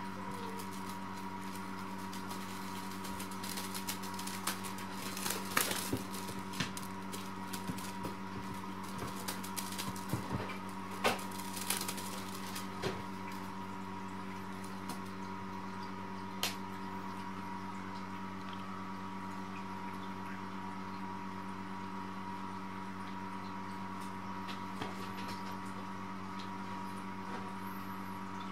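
A steady mechanical hum, like a running appliance, with scattered light clicks and taps, most of them in the first half.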